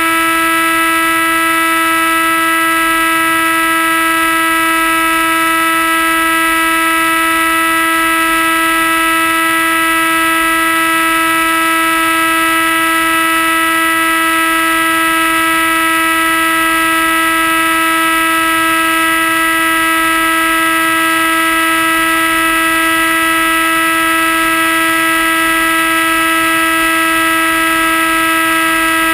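Motor and propeller of an RC FPV flying wing (Comet) heard from the onboard camera, running at a steady full throttle, a constant loud whine that never changes pitch. It is held at 100% because the added weight of the GoPro demands it.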